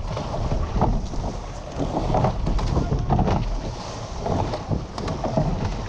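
Wind buffeting the microphone over water rushing along the hull of a rowed surf boat, with a surge of sound about once a second.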